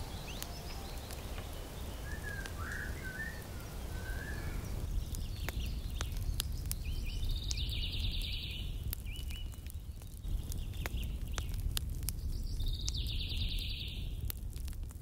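Birds singing over a steady low rumble: short calls in the first few seconds, then a fast trilled song twice in the second half. Scattered sharp clicks run through the second half.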